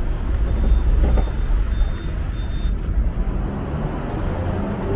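Hong Kong double-decker electric tram running along the street: a steady low rumble with road traffic around it. Four faint short high beeps come evenly spaced in the first half.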